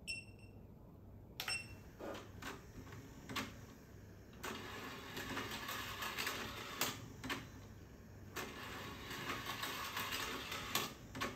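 Plastic climbing-duck slide toy's motor-driven staircase running weakly on only 1 volt, giving faint, irregular plastic clicks and clacks and a light rattle that grows busier after a few seconds. Two short high beeps sound near the start.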